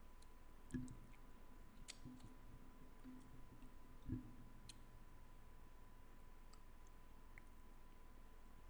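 Near silence: room tone with a faint steady high tone, two short low thumps about a second in and about four seconds in, and a few faint clicks.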